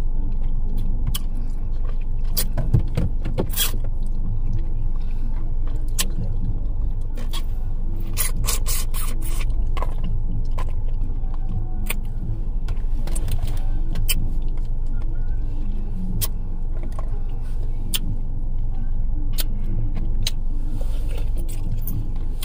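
Eating sounds: sharp clicks and smacks of chewing pork souse, scattered through and bunched together about eight to ten seconds in, over the steady low hum of a car idling, with music in the background.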